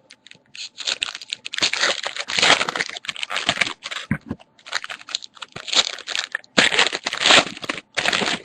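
Irregular crinkling and rustling of plastic and card packaging being handled, in quick bursts with short pauses.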